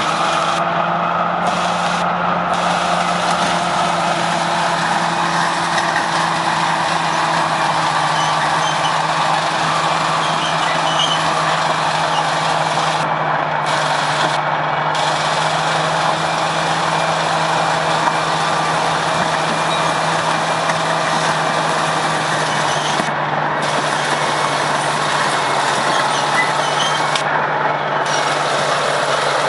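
Heavy diesel engine of construction machinery running steadily at an even speed, with a hiss of mechanical noise over it.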